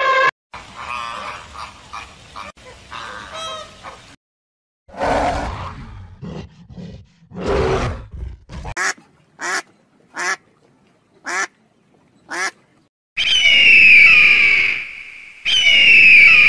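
A run of separate animal calls: an elephant trumpet cuts off at the start, then chattering flamingo calls, then deep gorilla grunts. A duck follows with about five short quacks, and an eagle closes with two loud, high, falling screams.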